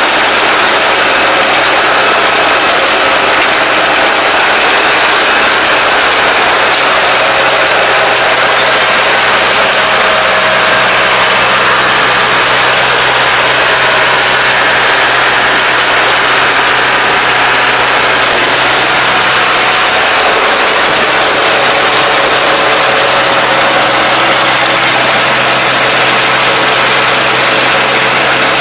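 Kubota tractor engine running steadily while it tows a STAR round baler picking up rice straw: a loud, even mechanical din over a steady low engine hum.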